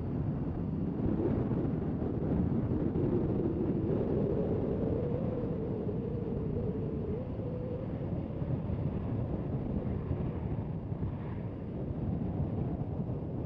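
Wind buffeting the microphone over a steady low rumble. A faint tone rises slowly in the first few seconds and then holds for a couple of seconds.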